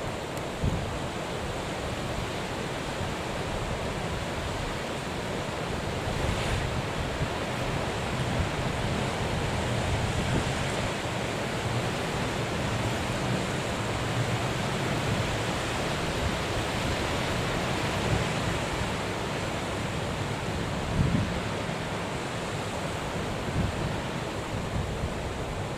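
Wind buffeting the microphone over a steady rush of rough sea and breaking waves, with a few stronger gusts, one about a second in and a couple near the end.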